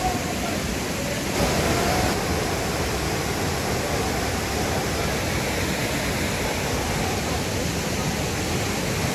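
Waterfall running in spate, a steady rush of falling water that gets a little louder about a second and a half in.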